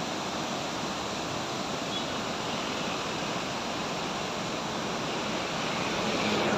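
Beas River rushing over rocky rapids: a steady, full rush of white water that grows a little louder near the end.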